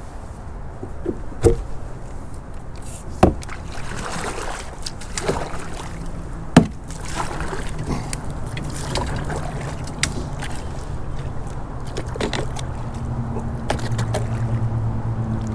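Kayak paddling: water splashing with the paddle's strokes and a few sharp knocks of the paddle against the hull. A low steady hum comes in about halfway through and grows stronger near the end.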